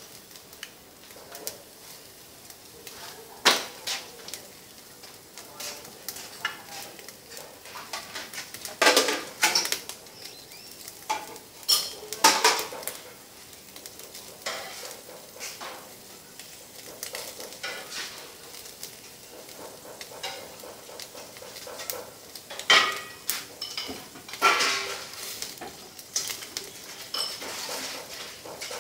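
Meat slices grilling on a wire rack over a clay charcoal stove: a steady hiss of sizzling with irregular sharp crackles and pops scattered throughout, a few of them much louder than the rest.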